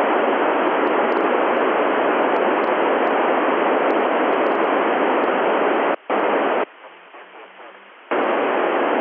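FM static hiss from an Icom transceiver receiving a satellite downlink, with no voice on it. It cuts out for a moment about six seconds in, drops to a much quieter hiss for over a second, then comes back loud near the end.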